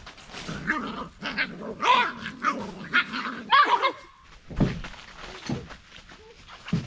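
Beagle puppies giving short, high, wavering growls and yips in play during the first few seconds, followed by a few soft thumps.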